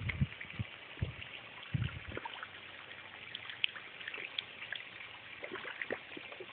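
Faint small splashes and slurps of fish feeding at the pond surface, a scatter of light ticks over a trickling water haze. A few low thumps come in the first two seconds.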